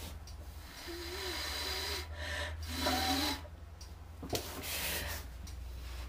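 Soft rubbing and handling noises in short spells as a hand touches and handles a canvas, with one light knock about four seconds in.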